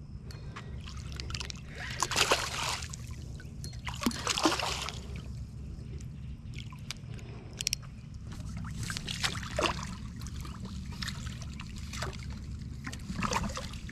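Hooked common carp splashing and thrashing at the water's surface while being played on rod and line, in several short bursts a few seconds apart, over a steady low hum.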